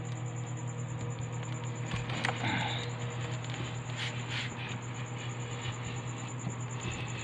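Light rustles and a sharp click about two seconds in as eggs and their tray are handled inside a home-made incubator, over a steady low hum and a continuous high, fast-pulsing insect trill.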